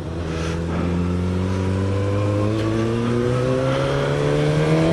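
Suzuki GSX-S1000's inline-four engine, fitted with a Yoshimura exhaust, pulling under acceleration, its note rising smoothly and steadily, with wind rush over the onboard camera.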